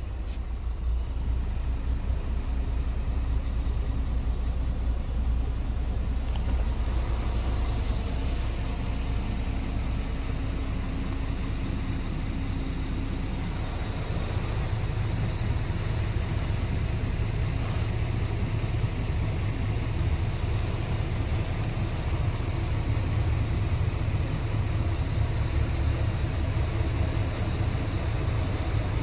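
Scania R tractor unit's engine idling steadily, a low, even rumble heard from inside the cab.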